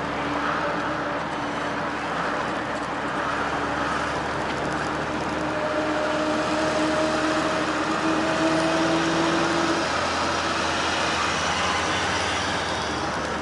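Engine and road noise of a car being driven, heard from inside. The engine note climbs slowly as the car gathers speed, then drops away about ten seconds in.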